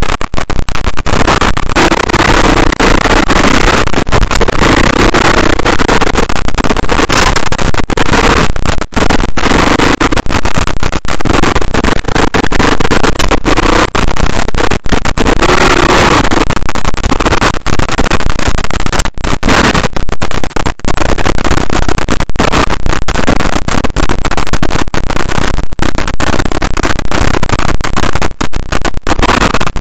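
KTM dirt bike engine revving hard under load on a steep off-road climb, its pitch rising and falling with the throttle. Heard very loud and distorted through the on-board camera's microphone, with wind buffeting and frequent brief drop-outs.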